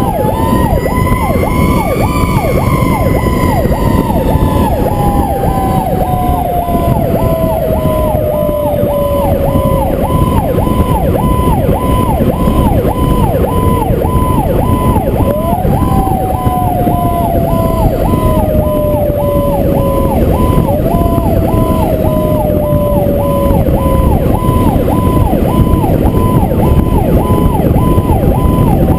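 Fire truck sirens sounding while the truck drives on a call. One siren repeats a fast up-and-down cycle throughout. A second, lower siren tone rises sharply and then slowly falls away, starting again about halfway through and once more a few seconds later. Engine and road noise run underneath.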